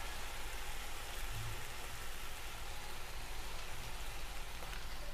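Diced potatoes frying in oil in a pan, giving a steady, even sizzle.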